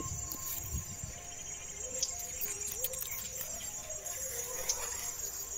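Insects chirring steadily at a high pitch in a pulsing drone.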